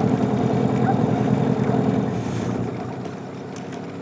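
A boat's motor running steadily, then eased back a little over halfway through, the drone dropping noticeably in level.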